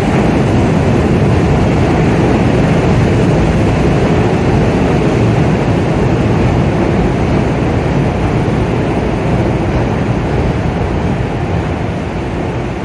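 CTA 'L' rapid-transit train pulling into a station: a steady rumble of its wheels on the rails as the cars pass close by, fading gradually near the end as the train slows.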